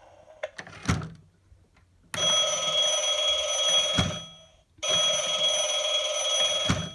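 Gemmy animated vintage telephone prop playing its recorded old-style telephone bell through its speaker: two rings of about two seconds each with a short pause between, after a single click about a second in.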